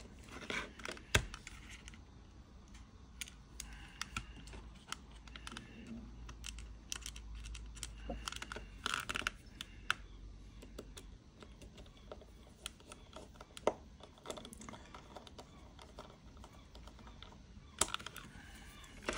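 Small Phillips screws being driven into the plastic housing of a Viofo A119 dashcam with a precision screwdriver: scattered, irregular light clicks and ticks of the driver tip turning in the screw heads.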